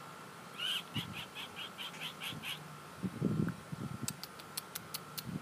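Sandhill crane sounds: a quick run of about eight short, high chirping notes, then some low muffled thumps, then a string of sharp clicks near the end.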